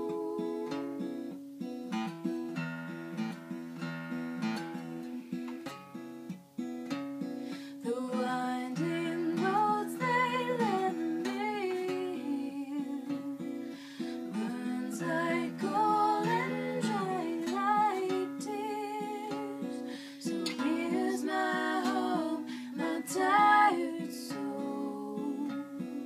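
Acoustic guitar being strummed and picked in chords, with a woman's singing voice joining over it from about eight seconds in.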